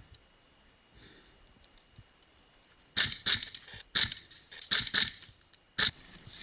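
Four short, sharp clattering bursts, the first about three seconds in and the rest roughly a second apart, after a quiet start.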